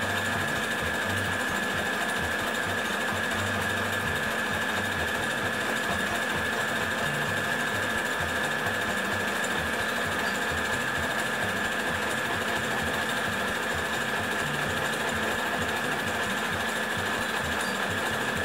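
Domestic sewing machine running continuously, stitching stretch knit fabric with its overlock-style edge stitch, with a steady high motor whine.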